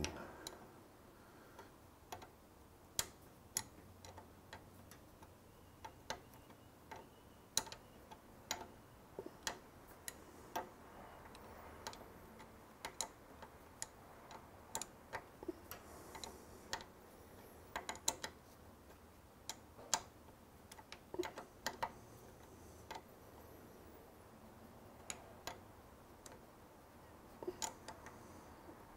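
Small hand wrench tightening the lock nut on the pad retaining bolt of a Brembo four-piston brake caliper: scattered sharp metal clicks at an uneven pace, about one or two a second.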